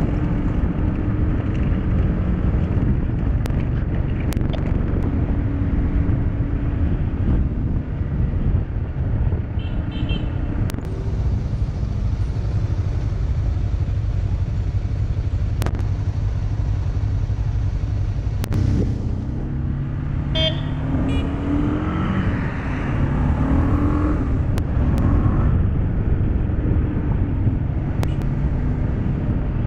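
Motorcycle engine running with wind and road noise while riding in traffic. About two-thirds of the way in, the engine pitch rises as it accelerates.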